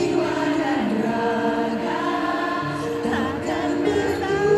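A woman singing a slow Indonesian pop ballad live into a microphone over held backing chords.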